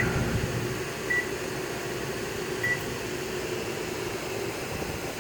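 Three short electronic beeps from a microwave's keypad over the steady drone of a Champion 3400-watt inverter generator and an RV air conditioner. The generator bogs down briefly as the microwave's load comes on while it is in economy mode.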